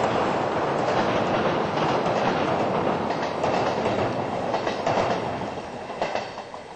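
Passenger train rolling across a steel truss railway bridge, its wheels clattering over the rail joints. The noise fades away from about five seconds in as the train moves off.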